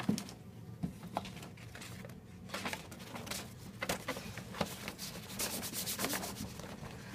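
Paper and cardboard rustling and rubbing in irregular scrapes, with a few small clicks: shadow puppets being pushed and brushed against the paper screen of the puppet theatre.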